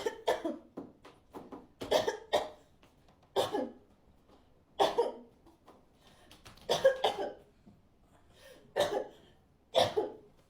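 An adult coughing hard over and over, a deliberately exaggerated fake coughing fit: about seven loud coughs, one every second and a half or so, some coming in quick pairs.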